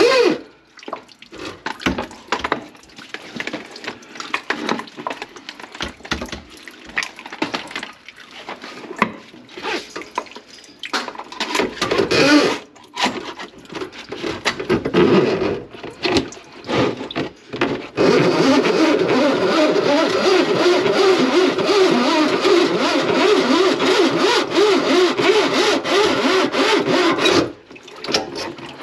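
Metal drain-snake cable clicking and scraping as it is fed and pulled through a kitchen sink drain pipe. About 18 s in, a steady rush of gurgling water starts, runs for about ten seconds, then stops.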